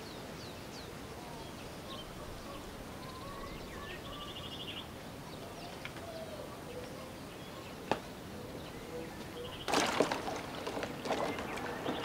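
Outdoor ambience with small birds chirping here and there, including a short rapid trill. A single sharp click comes about eight seconds in, and a louder run of knocks and clatter starts about two seconds later.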